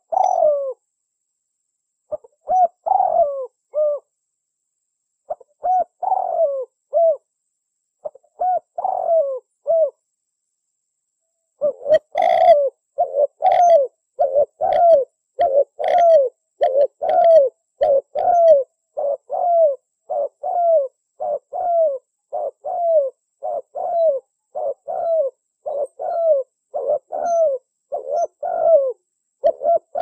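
Spotted dove (tekukur) cooing: a few separate coo phrases every two to three seconds, then, after a short pause about twelve seconds in, an unbroken run of coos at roughly one and a half per second.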